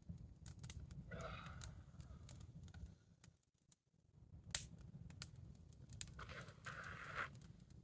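Wood campfire crackling, with scattered sharp pops over a low steady rumble; one pop about halfway through stands out, and the sound drops out briefly a little before it.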